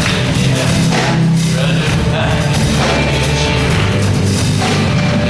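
Live church worship band playing a loud, upbeat rock-style praise song.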